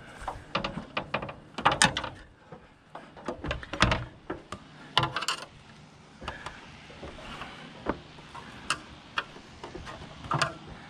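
Irregular knocks, clanks and clicks of someone climbing a ladder with metal treads up onto a boat deck, steps and hands striking the rungs, loudest in the first half.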